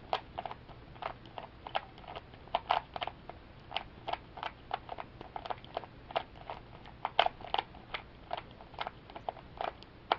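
Plastic 3x3 Rubik's Cube being turned fast by hand: a run of irregular sharp clicks and clacks as the layers snap round, a few a second. The centre pieces are being turned into their right orientation, which this picture cube needs.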